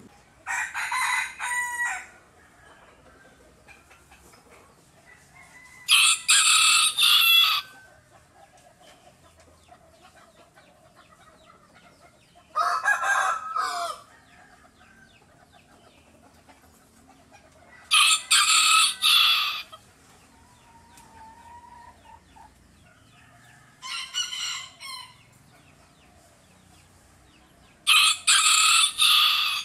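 Bantam rooster crowing: six crows, each a second or two long, spaced about five to six seconds apart, the fifth one quieter.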